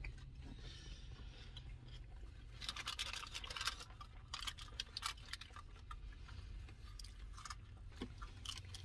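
Aluminium foil wrapper crinkling in short spells as a wrapped taco is handled, mixed with faint chewing and a few light clicks, over a low steady hum.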